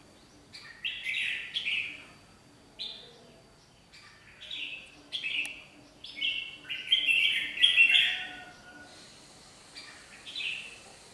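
Red-whiskered bulbuls singing in short, bright, chirpy phrases, coming thickest from about seven to eight and a half seconds in. It is song traded in a territorial contest between a caged decoy bulbul and a pair of other bulbuls.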